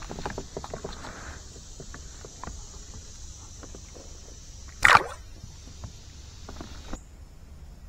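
Small clicks and rustles as a hook is worked out of a bluegill's mouth. About five seconds in comes one short, sharp splash as the fish is let go and hits the water beside the kayak.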